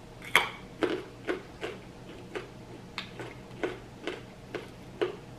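Close-miked eating of steamed mussels: a run of about a dozen sharp, wet clicks and smacks, roughly two a second, from chewing and from mussel shells being handled and pried apart.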